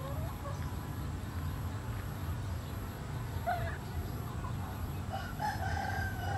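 Animal calls over a steady low rumble: a short call about three and a half seconds in, then a longer call held at one pitch starting about five seconds in.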